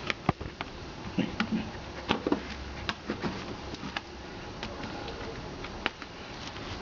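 Scattered sharp clicks and light taps of metal hand tools, end nippers and pliers, handling a rapid rivet whose cap has just been cut off in thick sole leather.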